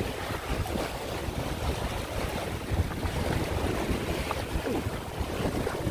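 Wind buffeting the microphone over small waves washing and lapping on a stony shore of choppy sea water.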